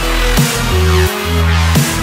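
Electronic background music with a heavy bass line and a steady beat, the bass dropping in pitch every second or so.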